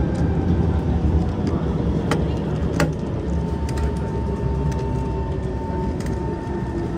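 Cabin noise of an SMRT Kawasaki C151 metro train: a steady rumble of wheels on track with scattered clicks and rattles, and a steady whine that comes in about three seconds in as the train slows into a station.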